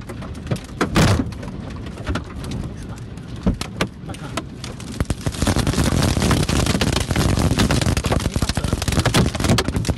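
Tornado wind rushing around a car, heard from inside the cabin, with rain and flying debris pelting the bodywork and windscreen in many sharp hits. About five seconds in, the wind and the pelting grow louder and denser.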